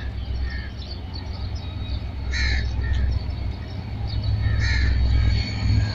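Crows cawing, with two louder caws about two and a half and five seconds in, over a steady low rumble.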